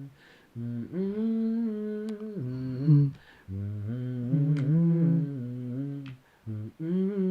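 A man humming the opening melody of a song in several held phrases with short breaks between them.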